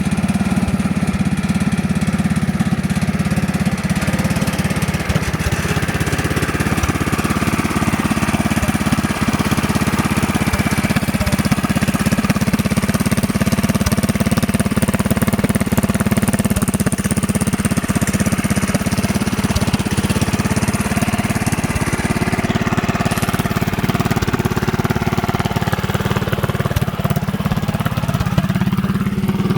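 Small go-kart engine running steadily, its pitch dropping and then rising again near the end.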